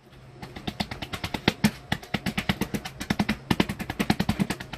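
Rapid, irregular percussive knocking, about seven or eight sharp strikes a second, growing louder over a faint steady low hum.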